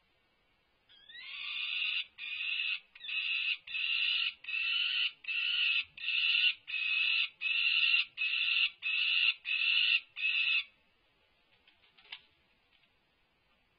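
Peregrine falcon calling: a run of about fourteen harsh calls, roughly one and a half a second. The first call slides upward, and the run stops abruptly about ten and a half seconds in. A single faint knock follows near the end.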